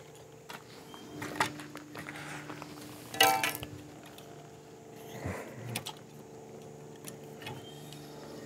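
Metal clicks and clinks as gear levers are worked off a Grillo G131 walk-behind tractor's gear linkage, with one louder ringing metal clank about three seconds in.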